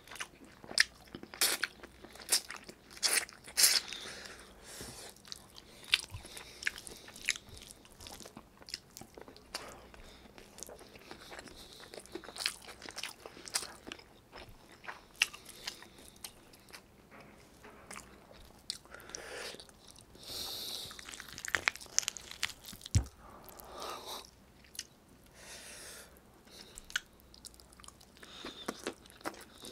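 Close-miked, wet chewing and lip-smacking of a person eating braised chicken adobo and rice by hand, with many quick irregular mouth clicks. There is one low thump about three-quarters of the way through.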